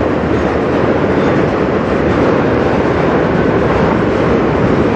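Freight train's autorack cars rolling past: a steady, loud rumble and rattle of steel wheels on the rails.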